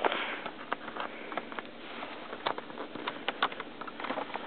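Lego minifigures being picked up and moved on a Lego baseplate: scattered, irregular light clicks and taps of plastic against plastic.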